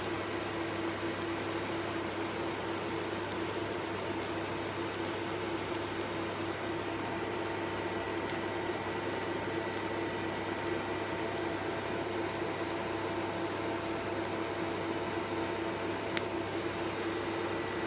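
TIG welding arc burning steadily on a 45-degree exhaust tube joint: an even hiss over a low electrical hum, with a few faint crackles.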